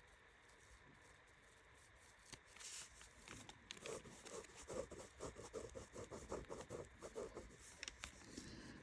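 Faint scratching of a pen or pencil drawing on paper. It starts a couple of seconds in as a run of short, quick strokes, about three a second.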